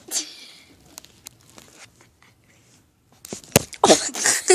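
Rustling and crackling close to the microphone: a brief hiss at the start, a few faint clicks, then a dense burst of sharp clicks and scuffs about three seconds in.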